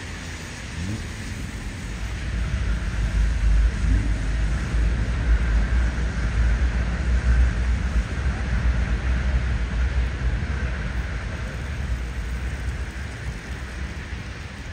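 City street noise with a low rumble from a passing vehicle that swells over a few seconds, peaks about halfway through and slowly fades.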